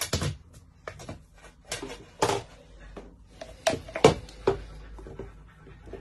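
Red silicone spatula and immersion blender knocking and scraping against a plastic jug of thick truffle filling: a series of short scrapes and knocks, the loudest about two and four seconds in.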